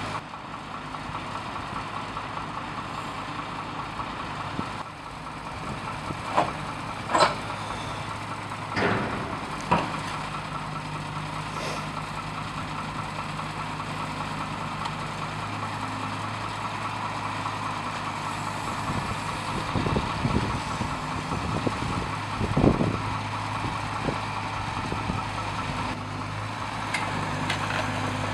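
Heavy diesel engine idling steadily, with several sharp metallic clanks and knocks at intervals.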